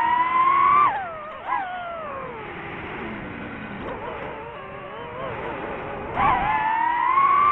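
DJI FPV drone's motors and propellers whining, the pitch rising and falling with the throttle: high in the first second, sliding down over the next two, then climbing again about six seconds in and holding high.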